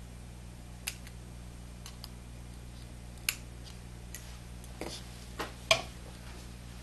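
Small metal parts of a portable record player's motor and idler-wheel assembly clicking and tapping as they are handled and fitted together. There is a scattering of sharp, separate clicks, and the loudest comes near the end.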